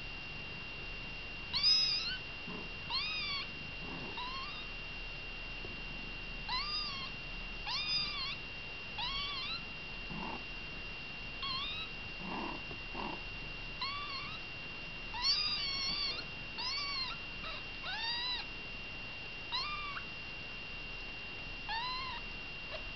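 Very young kittens mewing: thin, high-pitched squeaky mews, each rising and falling, repeated every second or so. A steady faint high whine runs underneath.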